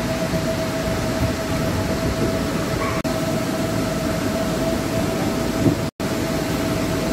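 Steady noise of the electric air blowers that keep the inflatables up, with a constant hum running through it. It cuts out for an instant twice.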